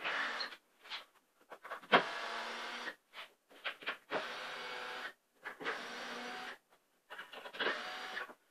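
Cordless drill-driver running in five short steady bursts of about a second each, backing the screws out of a temporary wooden ledger, with a sharp click at the start of one burst about two seconds in.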